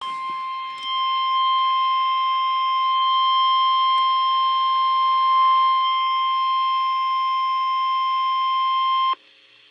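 NOAA Weather Radio warning alarm tone: a single steady high-pitched tone of about 1050 Hz held for roughly nine seconds, then cut off abruptly. It signals that a warning, here a flood warning, is about to be read.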